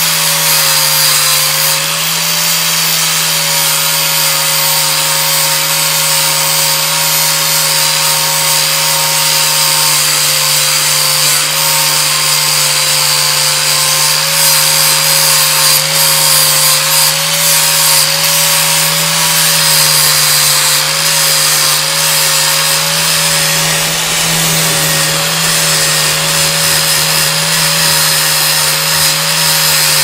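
Angle grinder with a flap disc running continuously, sanding down a weld bead on the sheet-steel door top. Its motor whine holds steady, wavering slightly in pitch as the disc is pressed against the metal, over a constant hiss of abrasive on steel.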